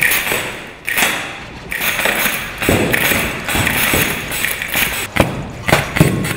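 Staged blaster shootout: an irregular run of sharp bangs and thuds, several close together, as shots and spark hits go off.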